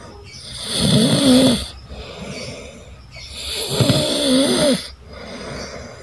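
A sleeping young man snoring heavily: two loud snores about three seconds apart, with quieter breathing between them.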